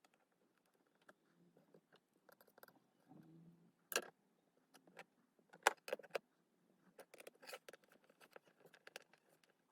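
Scattered light clicks and taps of small tools and parts being handled on an opened smartphone, with a few brief scrapes; the sharpest clicks come about four and six seconds in.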